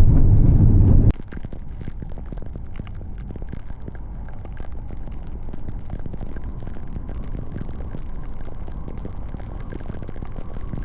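Heavy rain pattering on a vehicle's roof and windshield, a steady noise of countless small drop ticks. A louder low rumble stops abruptly about a second in.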